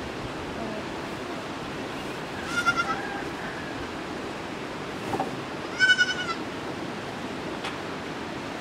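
A goat bleating twice, a few seconds apart: short, high, quavering calls.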